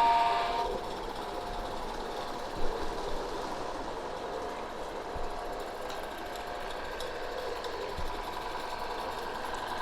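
A small 16mm-scale garden railway locomotive running along the track, a steady mechanical whirr, with a short pitched tone right at the start.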